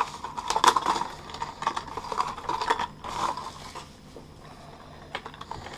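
Plastic bubble-wrap packaging crinkling and crackling in irregular clicks as a lure box is unwrapped by hand. It eases off after about three and a half seconds, with one more click near the end.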